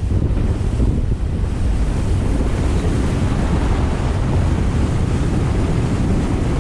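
Steady wind noise buffeting the microphone aboard a 26-foot NauticStar boat running at speed across open water, mixed with the rush of water past the hull; a heavy, even rumble with no distinct engine note.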